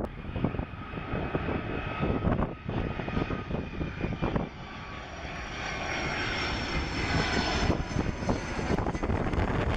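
Jet engines of a Boeing 757-200 on final approach, passing low overhead with landing gear down: a steady engine whine with a few high tones, growing louder and fuller about halfway through. Gusts of wind buffet the microphone, mostly in the first half.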